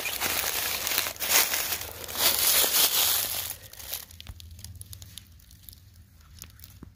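Footsteps crunching through dry fallen leaves and twigs, then the walking stops about three and a half seconds in, leaving only faint rustles and a few small clicks.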